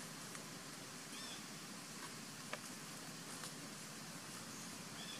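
Faint outdoor ambience: a steady hiss and low hum with a few soft clicks, the sharpest about two and a half seconds in, and two brief high chirps, about a second in and near the end.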